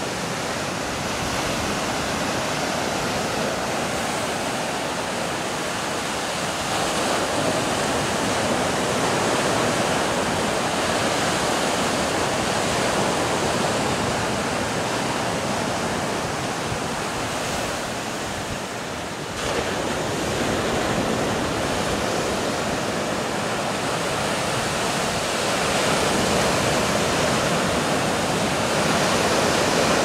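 Caribbean Sea surf breaking on a rocky shore: a continuous rush of breakers and foam that swells louder a few times, around a quarter of the way in and near the end.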